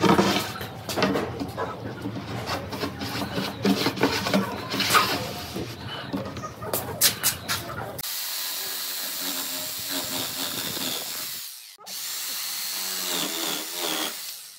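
Electric jigsaw sawing through the overhanging end of a hardwood edge strip. It runs steadily, stops briefly partway through and starts again. Before the cut there are irregular knocks and clatter as the wood strip is handled and set in place.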